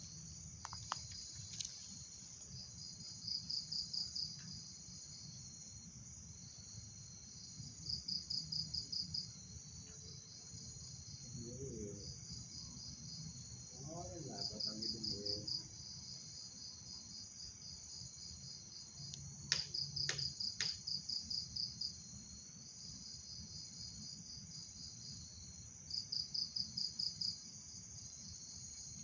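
Night insects, crickets or similar, chirping: a steady high-pitched drone, with a louder rapid pulsing trill that repeats about every five to six seconds and lasts about a second and a half each time.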